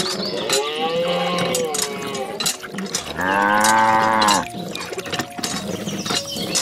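Two cow moos, dubbed in as a sound effect for toy cows; the second, about three seconds in, is louder and lower. Short clicks are scattered throughout.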